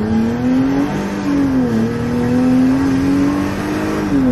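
Mercedes SLK32 AMG's supercharged 3.2-litre V6, fitted with a 65 mm clutch-delete supercharger pulley, under hard acceleration, heard from inside the cabin. The engine note climbs in pitch and drops as the transmission shifts up about two seconds in and again near the end.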